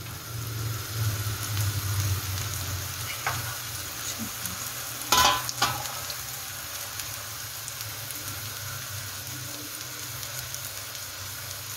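Nettle fritters shallow-frying in hot oil, a steady sizzle. About five seconds in, two sharp metallic clinks from the tongs against the pan.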